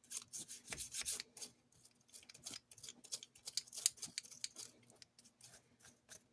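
Irregular small clicks and scrapes of a hand tool working at the metal motor truck of a Lionel postwar F3 locomotive while cleaning gunk out of it, with a faint steady hum underneath.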